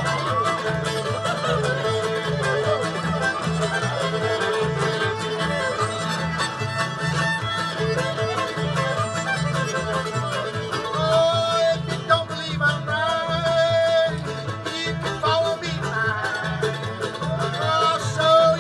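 Old-time string band playing live, an instrumental stretch with no singing: fiddle carrying the melody over strummed guitar and a steady upright-bass pulse.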